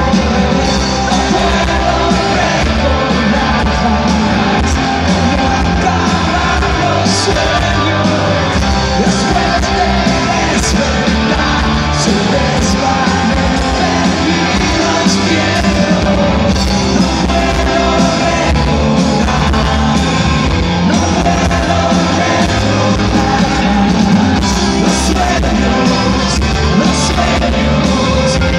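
Live rock band playing: drums with cymbal crashes, electric guitar and a male lead singer, loud and continuous.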